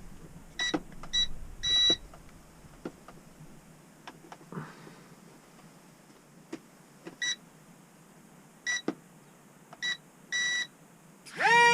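Electronic beeps from a toy-grade RC transmitter and plane being powered up and bound. Short single beeps come in small groups with long gaps between them. Near the end there are two louder sweeping chirps, as the link is made.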